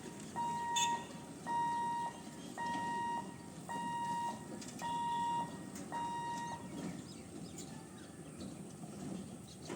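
Railway level-crossing warning beeper sounding a steady electronic beep about once a second, six times, then stopping: the alarm that goes off as the crossing gate closes for an approaching train.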